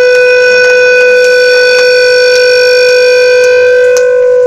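Electric guitar amplifier feedback: one loud, steady held tone with a stack of ringing overtones. The highest overtones drop away about four seconds in.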